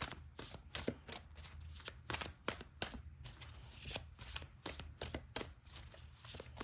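A tarot deck being shuffled by hand: a quick, irregular run of card slaps and riffling clicks.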